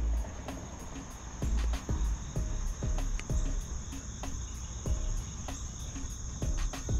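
Insects, crickets by the sound, trilling steadily at a high pitch, with repeated low thumps of wind or handling on the microphone and several short notes that drop in pitch.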